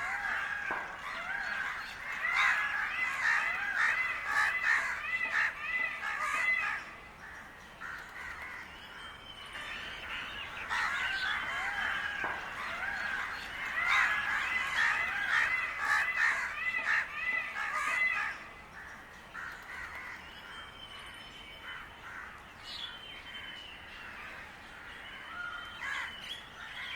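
Several crows cawing, with many overlapping calls in two long busy stretches, thinning to scattered caws over the last part.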